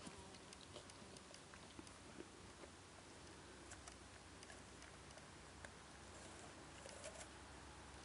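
Faint, irregular crunching clicks of a Clumber Spaniel nibbling an apple with his front teeth.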